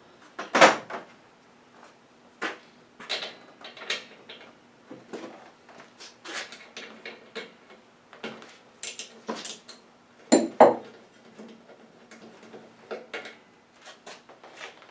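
Metal hand tools clinking and knocking, irregular clicks and clatters, as a socket is taken from a tool drawer and used to remove the lawn mower's spark plug. The loudest knocks come right at the start and about ten seconds in.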